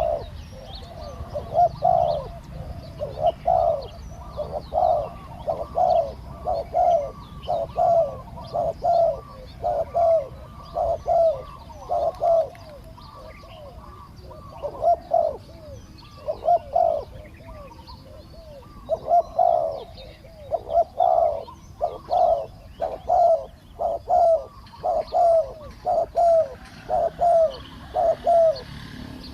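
Spotted doves cooing over and over in short repeated phrases, with a couple of brief pauses, while small birds chirp faintly above.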